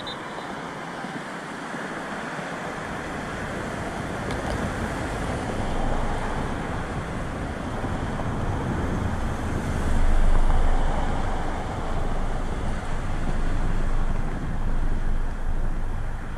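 Wind buffeting the camera's microphone: a rumbling noise that grows from about three seconds in and swells and falls in gusts, strongest about ten seconds in.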